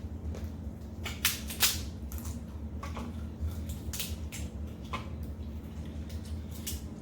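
Crab shells being cracked and snapped apart by hand, a series of short sharp cracks, the loudest about a second and a half in.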